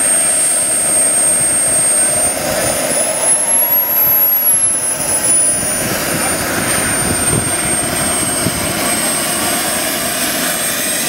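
Small model jet turbine running at low power while the model taxis: a high thin whine over a steady exhaust rush. The whine rises in pitch about two seconds in and sinks back down about six seconds in, as the throttle is opened briefly and closed.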